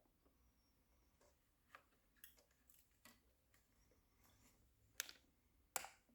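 Quiet handling of a motherboard's packaging: scattered faint taps and clicks, with two sharper clicks near the end.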